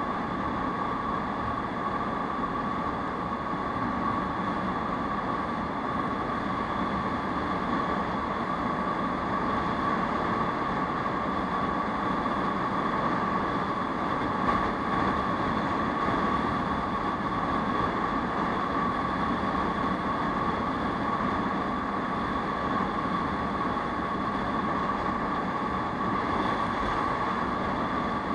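Aprilia SR 150 scooter's single-cylinder engine and drive cruising steadily at highway speed, mixed with wind rushing past the camera. There is a constant hum and an even rush, with a brief small bump about halfway through.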